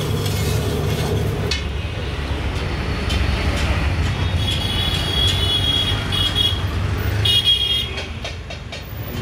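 Street traffic noise: a steady low rumble with vehicle horns honking several times in the second half.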